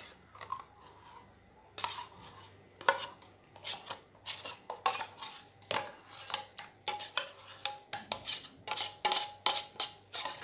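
Metal spoon scraping and clinking inside an opened tin of condensed milk, scooping it out over a steel pot. Irregular sharp clinks start about two seconds in and come faster later on.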